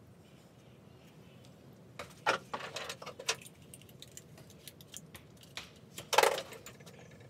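Small metal objects being handled and clinking: a quick run of clicks and clinks about two seconds in, then a single louder clink with a short ring about six seconds in.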